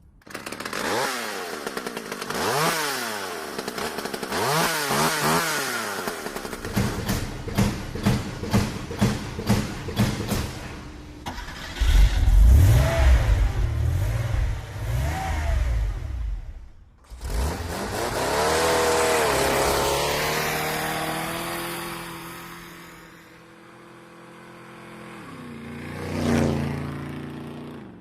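Engine sound effects, motorcycle-like, in a stereo demo. The engine revs up and down several times, gives a run of quick rhythmic revs, then runs loud and deep for a few seconds. After a short break a steady engine tone slowly drops in pitch.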